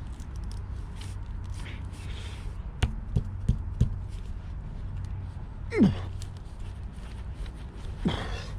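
A tyre plug insertion tool being forced into the hole in a car tyre's tread, with a few sharp knocks about three seconds in and a man's falling grunt of effort near the middle, over a steady low hum.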